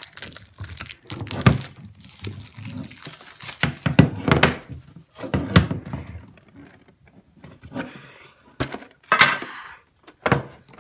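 Plastic shrink wrap crinkling as it is peeled off a metal Pokémon card tin, mixed with irregular thunks and knocks of the tin being handled and its lid being pulled off.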